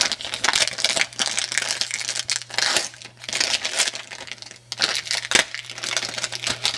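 Foil wrappers of 2007 Threads football card packs being torn open and crumpled: a dense run of crinkling with a couple of brief lulls, over a steady low hum.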